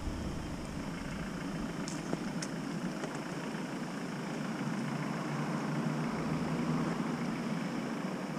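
The engine of the vehicle carrying the camera runs steadily at low speed with a low rumble, growing slightly louder about six seconds in.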